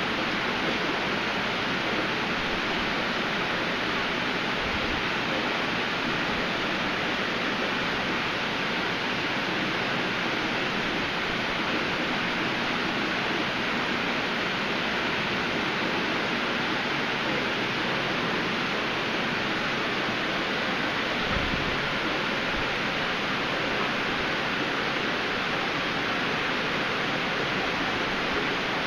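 Steady rushing and splashing of aquarium water, the flow from the tanks' filtration running without a break.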